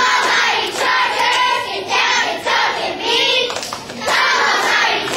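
A group of young girls chanting a cheer in unison, loud and continuous, with hand claps.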